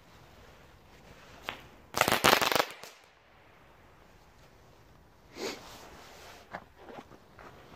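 Small category 1 firework going off: one quick tick, then a loud cluster of sharp cracks lasting under a second about two seconds in. A softer crack follows about five and a half seconds in, with a few faint clicks after it.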